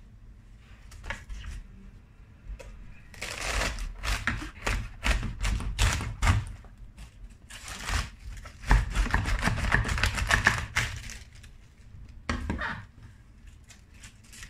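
Crisp crunching and crackling of a raw savoy cabbage head being cut through with a knife on a wooden cutting board, in two long bouts.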